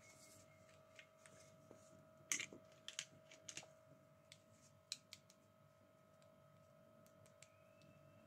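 Light clicks and taps of small plastic toy doctor-kit pieces being picked up and handled by gloved hands, with a cluster of sharper clicks between about two and four seconds in and one more about five seconds in, over a faint steady hum.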